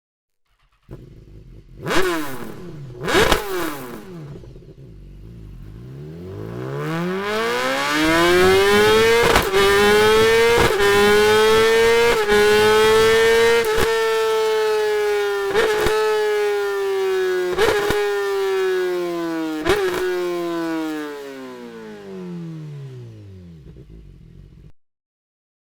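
BMW S1000RR inline-four motorcycle engine revved through its exhaust: two quick throttle blips, then a long pull up to a high steady rev held for about ten seconds, with small regular dips in pitch, before it winds back down.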